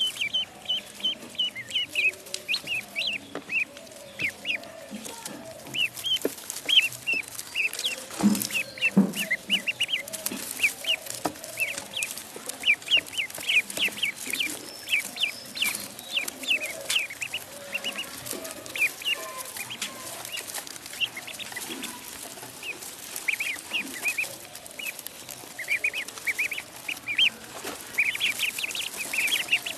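Ducklings peeping: many short, high-pitched peeps in quick, uneven succession, with a brief lower call about eight seconds in.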